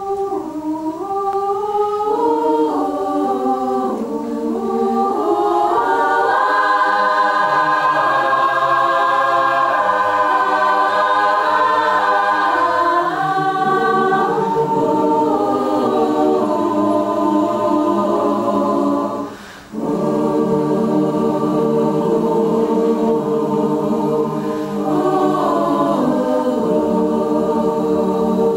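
Large mixed choir singing a cappella in sustained, shifting chords. Deeper voices join about halfway through, and the singing breaks off for a moment a little over two-thirds of the way in.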